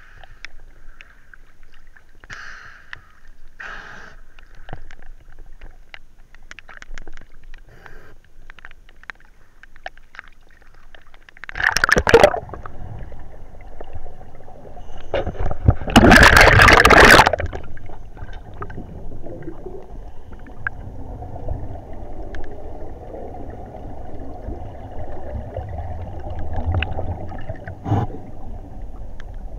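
Underwater water noise with gurgling bubbles, picked up through a dive camera's housing. It is faint and ticking at first. Two loud rushes of bubbles come near the middle, the second one louder and about a second long. A steady low rumbling hiss follows.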